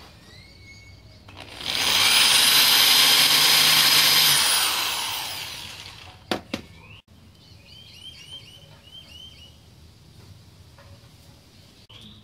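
Electric drill with a countersink bit running for about three seconds, cutting a countersink for a bolt head into a plastic car side skirt, then spinning down. Two sharp clicks follow, and birds chirp faintly in the background.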